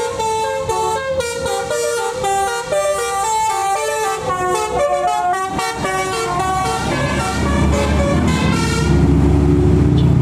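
Tour bus's telolet multi-tone musical air horn playing a fast tune of short stepped notes. The tune stops about eight and a half seconds in, and a low engine rumble grows louder.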